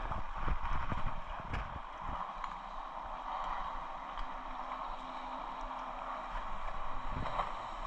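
Steady wash of moving water, with scattered low knocks and thumps.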